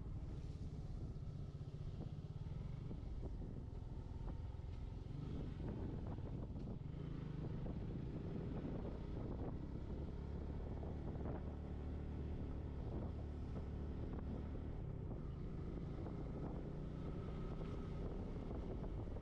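Motorcycle engine running while riding at a steady pace, its note rising and falling a little, with wind rushing over the microphone.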